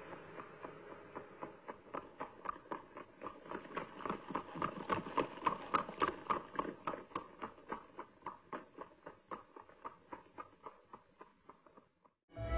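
Hooves clip-clopping on pavement at a steady trot, about four steps a second, growing louder toward the middle and then fading away as a zebra passes by.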